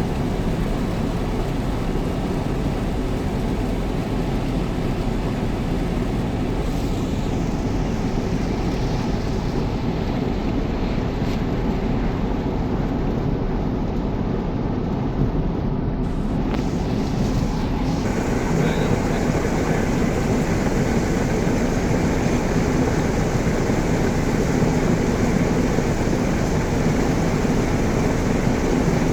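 Steady road and engine noise heard from inside a moving car, turning a little louder and brighter about two-thirds of the way through.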